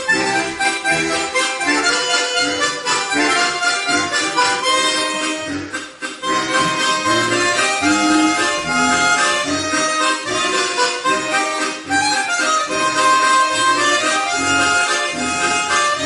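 A harmonica ensemble playing a tune together: sustained melody and chord notes over a rhythmic low accompaniment, with a brief break about six seconds in.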